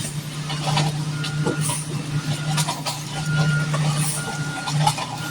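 Concrete mixer truck's diesel engine running steadily during a pour, with a reversing alarm beeping about once a second.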